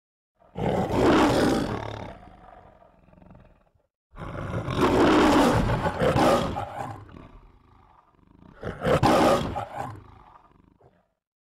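The Metro-Goldwyn-Mayer logo's trademark lion roar: three roars, each fading out over a second or two, the middle one the longest.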